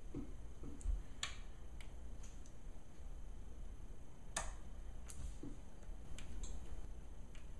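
Small screwdriver and tiny screws clicking and ticking against a laptop's LCD panel and its metal mounting brackets as the screws are driven back in: light, irregular clicks, the sharpest about four and a half seconds in.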